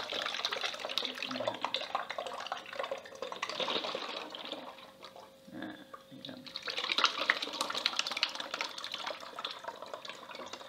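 Fermented rice wine (sato) and its soggy rice mash poured from a plastic tub into a funnel, splashing and trickling into a bottle. The pour eases off about five seconds in and picks up again a second or so later.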